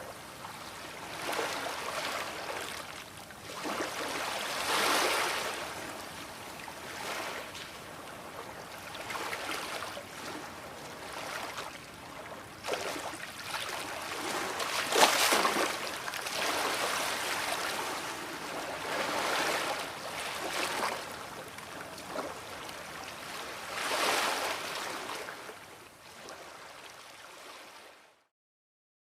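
Sea waves washing onto the shore, the surf swelling and falling away every few seconds, loudest about halfway through, then cutting off just before the end.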